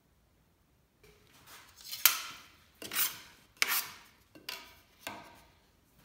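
A hand tool scraped across wood in about five quick strokes, one every half second or so, each starting sharply and fading away.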